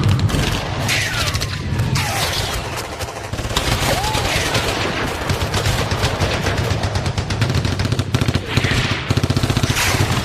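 Battlefield gunfire sound effect: dense, rapid machine-gun and rifle fire, shot after shot without a break, over a steady low rumble.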